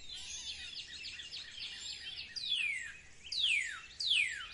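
Birdsong: many quick, high chirps, then from about halfway a series of four loud whistled calls, each sliding steeply down in pitch.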